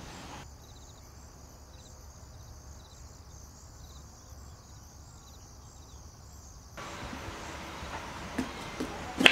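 Quiet, steady background noise, muffled for most of the stretch, with a few sharp taps of a kitchen knife cutting a bell pepper against a wooden cutting board near the end.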